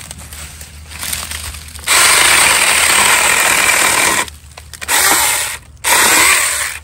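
Saker 4-inch cordless mini chainsaw running and cutting through small tree limbs. It comes in three bursts: a long cut of a couple of seconds starting about two seconds in, then two shorter ones.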